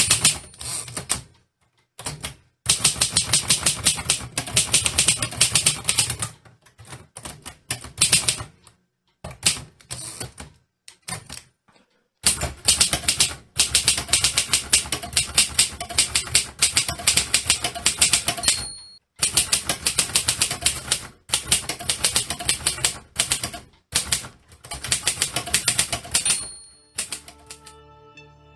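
Manual typewriter typed in fast runs of keystrokes broken by short pauses. The margin bell rings three times: at the start, around two-thirds of the way through, and once more just before the typing stops near the end.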